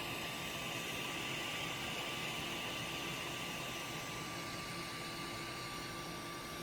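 3D printer running: a steady fan-like noise with a thin, constant whine over it.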